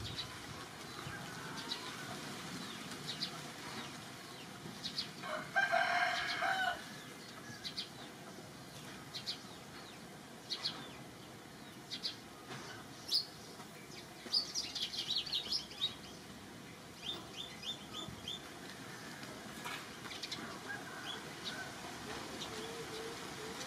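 Outdoor ambience of birds chirping: scattered short, high chirps and a quick run of chirps past the middle. The loudest sound is one longer pitched call lasting about a second and a half, about five seconds in.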